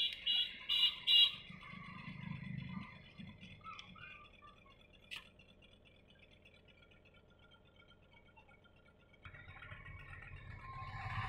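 A few short high-pitched chirps in the first second, then quiet handling of a phone whose glued screen is being prised apart, with one sharp click about five seconds in. A low hum starts near the end.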